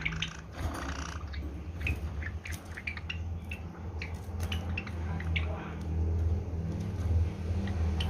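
Java sparrows giving short, high chip calls, scattered through, with small clicks from the cage over a steady low hum.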